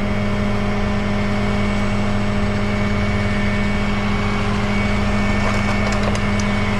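Tow truck engine idling steadily, under a constant electrical buzz.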